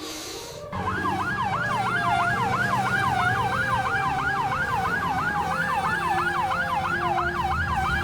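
Emergency-vehicle siren in a fast yelp, sweeping up and down about three times a second, starting about a second in over a steady low hum.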